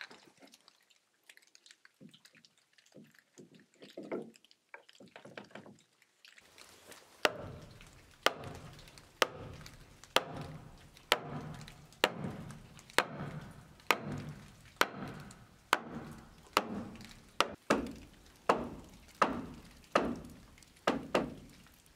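A large wooden mallet striking a hardwood key into a slot joint in a timber beam: about sixteen evenly paced blows, a little under one a second, each with a low woody ring. A few lighter taps come before the blows start.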